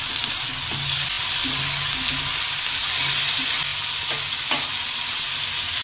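Chopped onion, capsicum, tomato and green chilli sizzling in hot oil in a metal kadai while being stirred with a metal spatula, a steady frying hiss with two sharp clicks of the spatula against the pan about four seconds in.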